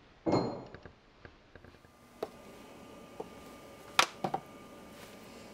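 Handling sounds of parts and tools at a workbench: a short rustling burst near the start, then a few scattered sharp clicks and knocks, the loudest about four seconds in, over a faint steady hum.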